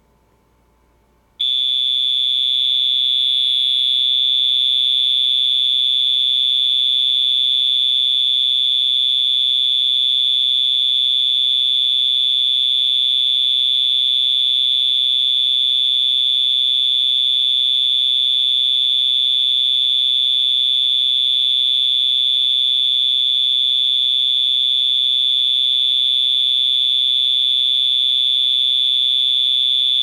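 Federal Signal Vibratone 450E electronic fire alarm horn switched on about a second and a half in, sounding one steady, high-pitched tone.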